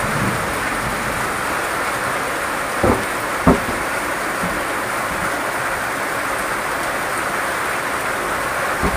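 Heavy rain pouring down steadily in a continuous hiss, with water streaming off a roof edge. Two dull knocks about three seconds in.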